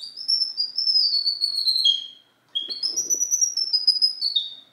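High-pitched whistling in two long phrases with a short break between them, each phrase stepping down in pitch note by note.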